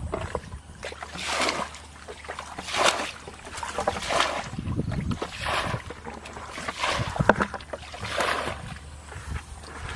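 Water splashing and sloshing in about six even strokes, roughly one every second and a half.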